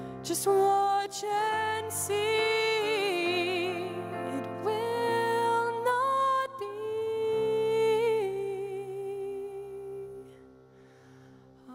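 A woman singing a slow worship song into a microphone over held keyboard chords, drawing out long notes with vibrato. The singing stops about ten seconds in and the music falls quiet for a moment.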